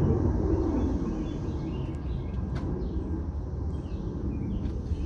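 Low steady outdoor rumble, with faint bird chirps and a few light clicks.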